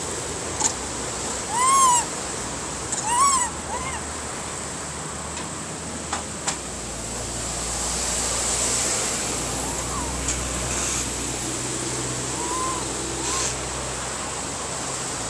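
Steady outdoor hiss with a high, even tone running over it. Two loud calls, each a short rising-then-falling note with overtones, come about two and three seconds in, with fainter calls like them later on. A low rumble swells through the middle, along with a few sharp clicks.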